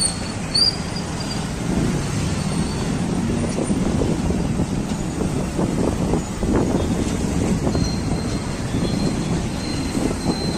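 Road traffic running by: a steady low rumble of engines and tyres from heavy vehicles, with brief high squeals near the start and a thin high squeal near the end.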